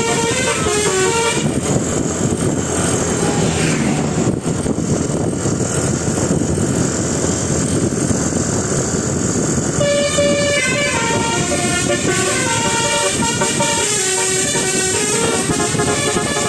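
Telolet bus horn from a Basuri horn module playing a tune in quick stepped notes, which breaks off about a second in. A stretch of steady noise without the tune follows, and the horn tune starts up again about ten seconds in.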